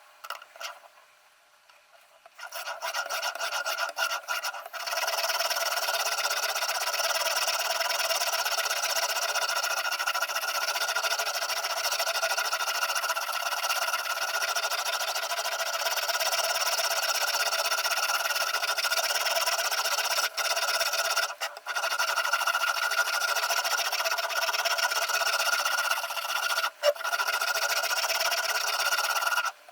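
Sharpening stone of a Ruixin Pro RX-008 guided knife sharpener rubbing along the edge of a VG10 Damascus chef knife: a steady scraping that begins about two and a half seconds in, after a few light clicks, with a couple of brief breaks near the end.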